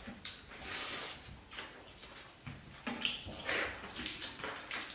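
Wet chewing and mouth sounds of people eating rice and chicken by hand, close to the microphone, in several short soft bursts.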